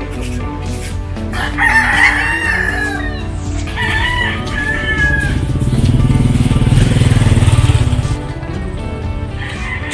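Roosters crowing: one long falling crow about one and a half seconds in, another around four seconds, and a third near the end, over background music. A loud low rumble swells up in the middle and drops away about eight seconds in.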